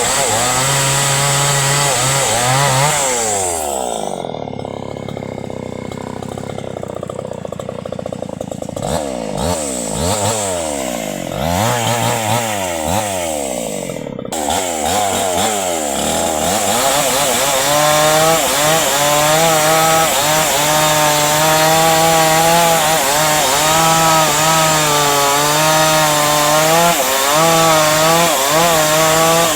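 Chainsaw cutting into a tree trunk at full throttle; about three seconds in it drops toward idle and is revved up and down for several seconds, then goes back to full throttle a little past the middle and keeps cutting, its pitch wavering under load.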